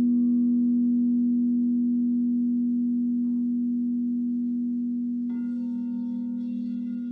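Crystal singing bowls: one bowl holds a low, steady tone that slowly fades. About five seconds in, another bowl is struck and adds a brighter ring of higher tones over it.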